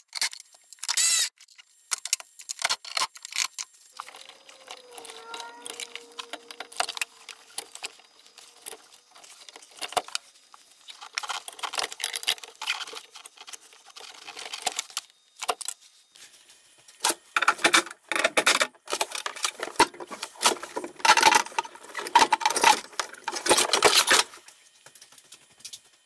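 Clicks, rattles and metallic clatter of gloved hands unplugging wiring connectors and handling tools at an electric car's on-board charger, coming in clusters that are busiest in the second half.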